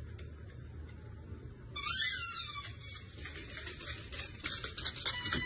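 Husky-type puppy giving high-pitched whines: a rising-then-falling squeal about two seconds in, broken squeals after it, and a held, slightly falling whine near the end.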